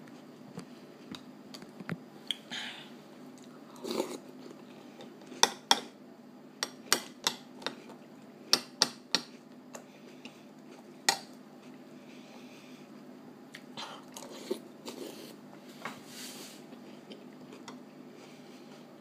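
A metal spoon clinking and scraping against a ceramic cereal bowl, with crunchy cereal being chewed between spoonfuls. The clinks are sharp and the loudest sounds, coming in a quick run of about a dozen a few seconds in, then scattered.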